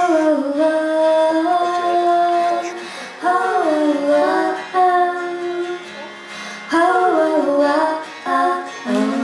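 A young woman singing a slow melody in three phrases of long held notes, accompanied by an acoustic guitar.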